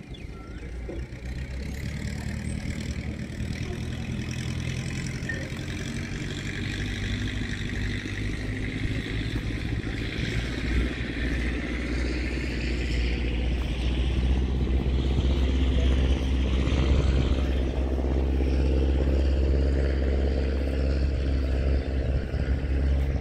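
An engine running steadily, its low hum growing louder over the stretch, with a hiss above it.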